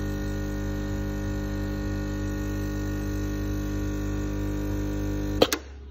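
Gaggia Classic espresso machine's vibratory pump buzzing steadily while brewing a shot. About five and a half seconds in it stops abruptly with a sharp click as the brew is ended.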